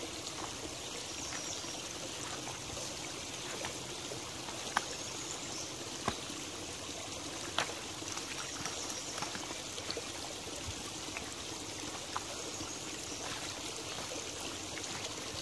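Shallow backyard creek trickling steadily down a freshly cleared channel over leaves and stones. A few short, sharp knocks cut through it, as a long wooden stick is worked through debris in the water.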